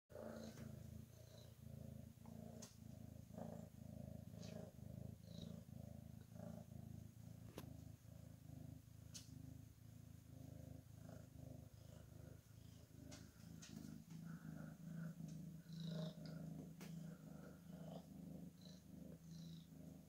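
Domestic cat purring quietly while being petted, a low steady purr that pulses about twice a second, with a few faint clicks.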